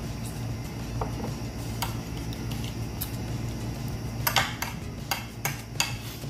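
Metal spoon clinking and scraping against a dish while eating, with a run of about five sharp clicks in the second half.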